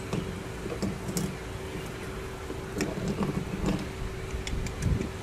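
Scattered light clicks and a few soft knocks over steady background noise with a low steady hum, the loudest knock shortly before the end.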